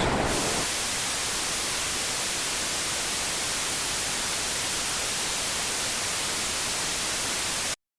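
Steady hiss of white-noise static, even across all pitches, that cuts off suddenly into dead silence near the end.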